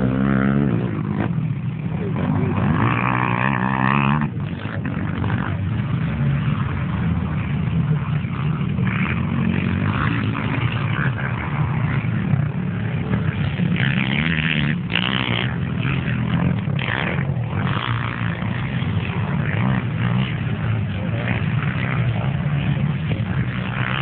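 Racing quad bike (ATV) engines revving on a dirt track, the pitch climbing and dropping as they accelerate and shift, with a steady engine noise underneath.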